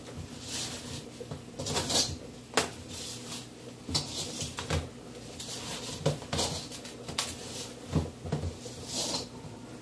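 Hands kneading and squeezing sticky dough in a stainless steel mixing bowl: irregular squishing and scraping strokes. The metal bowl clanks sharply a few times as it is knocked.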